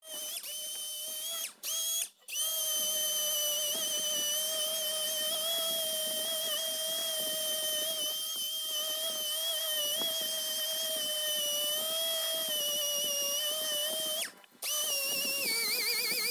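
Random orbital sander running against an alloy car wheel's spokes: a steady high whine that wavers slightly in pitch, breaking off briefly twice near the start and once near the end.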